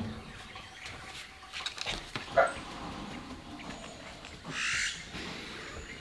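A short animal call about two seconds in, and a brief hiss a little before the end, over a quiet background.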